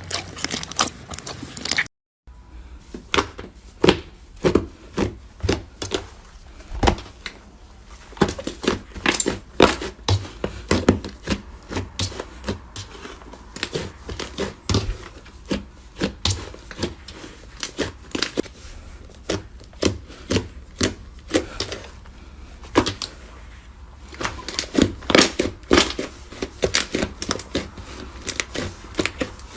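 Slime being pressed and squeezed by hand, giving an irregular run of sharp clicking pops, several a second, as trapped air bursts. The sound breaks off briefly about two seconds in, then the popping resumes.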